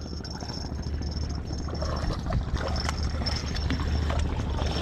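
Steady low engine hum, with a few light clicks and taps scattered through it.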